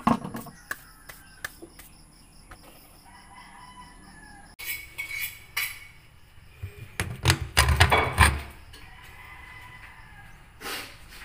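A plastic water jug is set down on a concrete floor with a knock, followed by scattered clicks. A few seconds later there is a burst of metallic clatter and knocks as the strainer is lifted out of a stainless-steel sink drain. A rooster crows in the background.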